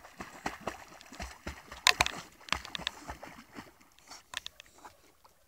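A dog paddling through lake water, its strokes making quick irregular splashes and sloshes, loudest about two seconds in and dying away near the end.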